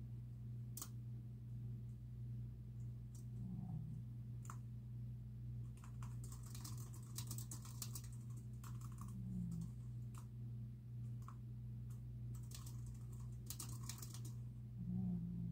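Typing on a computer keyboard: a few separate keystrokes at first, then quick runs of keys about six seconds in and again near the end, over a steady low hum.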